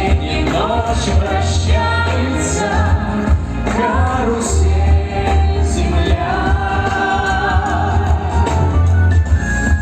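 Live concert music: singers performing a song over a band, with a heavy, steady bass.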